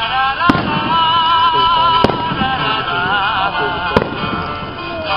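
Three sharp bangs of aerial firework shells bursting, about a second and a half to two seconds apart, over continuous music with a singing voice.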